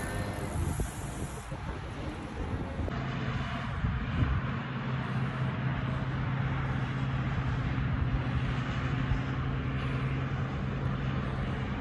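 Wind and road noise from riding a road bike, a steady rushing haze. About three seconds in, a steady low hum joins it and holds.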